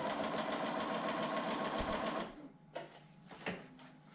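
Bernina sewing machine stitching a seam at steady speed, stopping about two seconds in; a couple of short sharp clicks follow.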